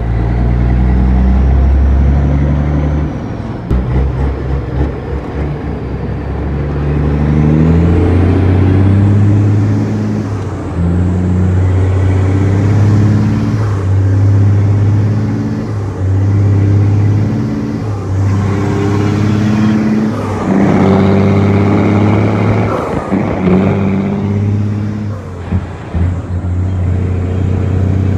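Caterpillar C15 inline-six diesel of an International 9300 truck, heard from inside the cab, pulling away and working up through its 18-speed manual transmission: the engine note climbs, drops at each gear change, and climbs again, over and over.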